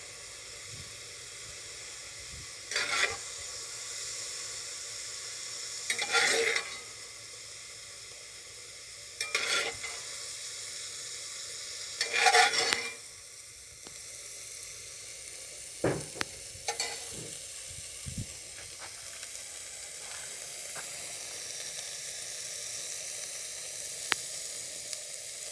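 Beef and vegetable stir-fry sizzling in oil in a wok, with a utensil scraping through the food four times, about every three seconds, in the first half. A few light clicks follow in the second half while the sizzle goes on.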